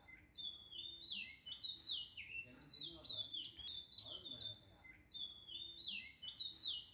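A steady run of short, high, falling chirps repeating in a regular pattern, several a second, over a faint steady high tone.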